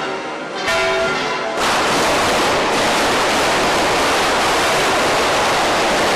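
Church bells ringing. About a second and a half in, a loud, steady rushing noise rises over them and holds.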